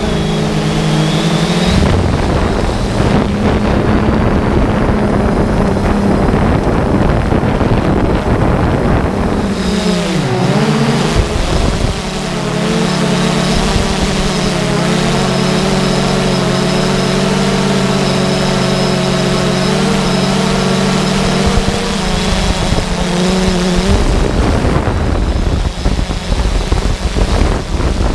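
3DR Solo quadcopter's motors and propellers droning over rushing wind noise. The pitch shifts about ten seconds in as the motors change speed, holds steady, then the droning drops out near the end, leaving only wind rush.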